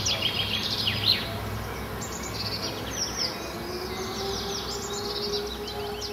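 Many small birds chirping and twittering in quick falling notes over a background hiss, with a steady low tone coming in about halfway through.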